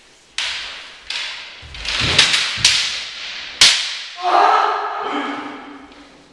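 Kendo sparring: a run of sharp cracks from bamboo shinai striking, with heavy bare-foot stamps on the floor, each echoing. About four seconds in comes a long, held shout (kiai) lasting well over a second.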